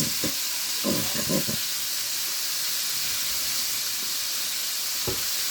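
Chicken wings deep-frying in hot oil: a steady sizzling hiss.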